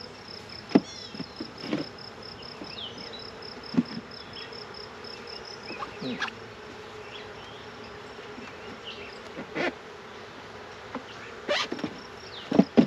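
Honeybees buzzing around an opened hive box full of a swarm, with the short rising and falling buzzes of individual bees flying close past. Scattered sharp knocks come from the wooden hive frames being handled.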